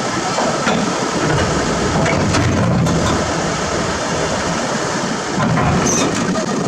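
Heavy earthmoving machinery running loudly, a dense rumble broken by several sharp knocks and clanks.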